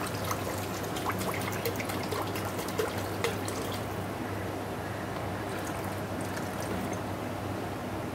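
Masala gravy crackling and sizzling in a kadai just after water has been poured into the hot fried spices. The crackles are dense at first and thin out about halfway through, over a steady low hum.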